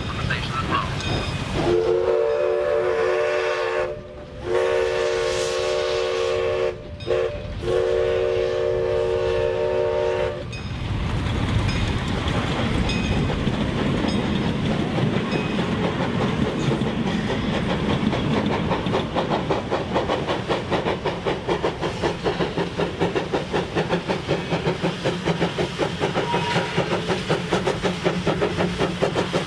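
Steam locomotive's chime whistle blowing three long blasts, several tones sounding together, then the locomotive working toward the listener with a steady rhythmic exhaust beat that grows louder.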